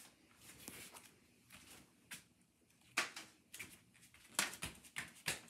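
Bare feet of a child running on a rubber floor mat: a few short, irregular thumps starting about three seconds in and bunching near the end, over quiet room tone.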